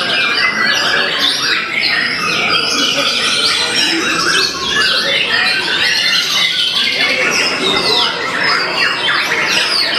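A dense chorus of caged white-rumped shamas (murai batu) singing at once: quick chirps, whistles and slurred notes overlapping without a break, rich in mimicked calls.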